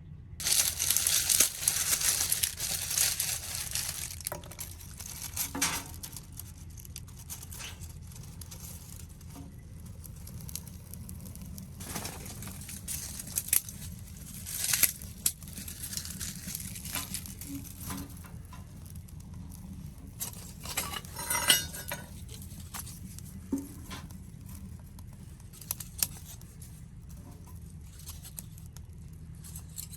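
Restarting a wood stove fire: rustling and crinkling in a loud burst over the first few seconds, then scattered light clinks and knocks, over a steady low hum.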